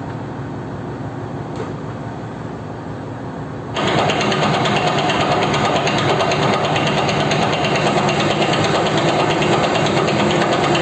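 Metal lathe running, a steady mechanical hum and rattle, set up for cutting a thread. The noise steps up sharply a little under four seconds in and stays louder.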